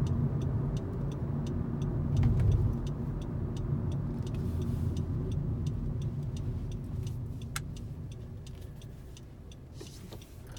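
Cabin noise of a 10th-generation Honda Civic on the move: a steady low road and engine rumble that fades toward the end, with a faint, even ticking and one sharper click about seven and a half seconds in.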